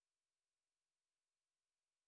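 Near silence: an empty audio track with only a faint, even hiss.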